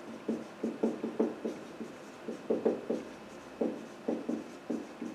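Marker pen writing on a whiteboard: a quick string of short, irregular pen strokes as a line of words is written out.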